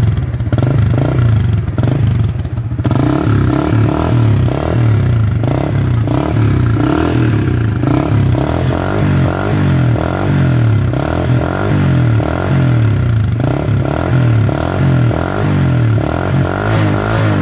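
Small motorcycle engine running through a freshly repaired custom 'bô móc' exhaust muffler, giving a steady, evenly pulsing exhaust note.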